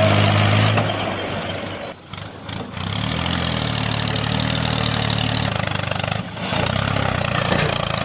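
Engine running steadily with a low hum. It drops out briefly about two seconds in and again around six seconds, each time picking up again.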